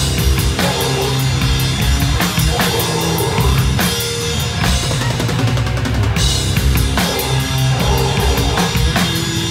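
Death metal band playing live and loud: fast drumming on the kit, with bass drum, snare and cymbals prominent close to the microphone, over sustained amplified guitar and bass notes.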